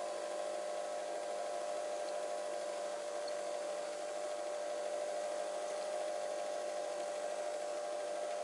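Film projector running: a steady, unchanging hum and whir.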